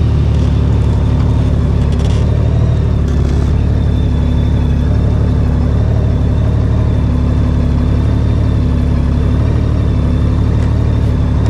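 A 2014 Honda Valkyrie's 1832cc flat-six engine running steadily while the motorcycle is ridden.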